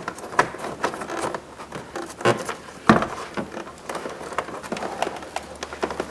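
Scattered light clicks and knocks with some rustling, from hands pushing and fitting plastic door-panel parts and wiring plugs; the sharpest knock comes about three seconds in.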